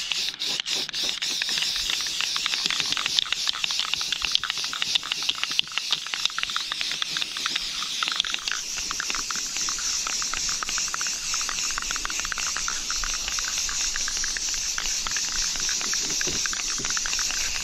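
Aerosol can of Rust-Oleum semi-gloss spray paint hissing as it sprays continuously. The spray is crackly for about the first half and turns into a smoother, even hiss from about halfway on.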